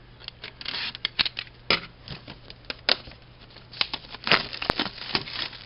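A retail pack of trading cards being handled and opened: irregular crinkling, rustling and sharp clicks of the packaging, with a few louder snaps.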